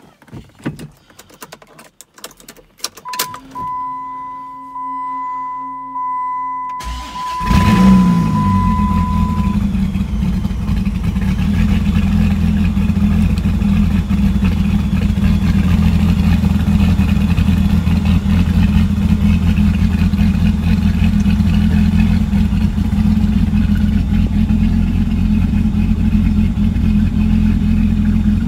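Cold start of a 2004 Dodge Viper's supercharged 8.3-litre V10. A steady electronic tone sounds for a few seconds. About seven seconds in, the starter cranks briefly and the engine catches with a loud flare, then settles into a steady, loud idle.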